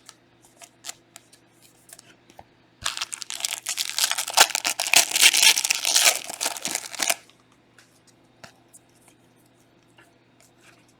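Trading-card pack wrapper being torn open and crinkled for about four seconds, with scattered light clicks of cards being handled before and after.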